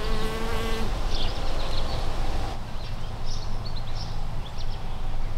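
A bee buzzing close by, a steady hum that breaks off about a second in, over a low steady rumble, with a few short high chirps from birds.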